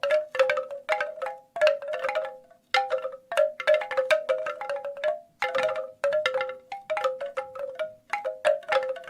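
Bamboo wind chimes knocking together: short notes at a few different pitches in irregular clusters, with brief pauses about two and a half seconds in and again near eight seconds.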